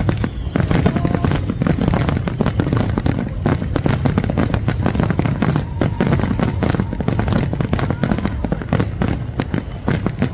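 Fireworks display in full barrage: aerial shells bursting in rapid succession, many reports a second with no pause, over a continuous low rumble.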